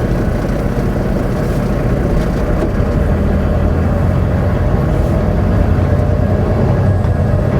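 Semi-truck's diesel engine and road noise heard from inside the cab while driving, a steady low drone that grows slightly louder a couple of seconds in.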